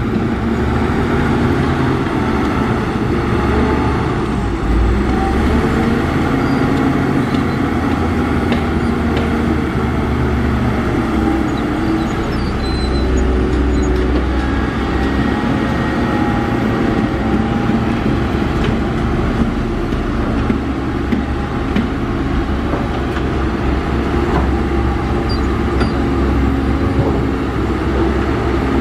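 Heavy diesel earthmoving machinery running steadily, a continuous low engine drone with no breaks.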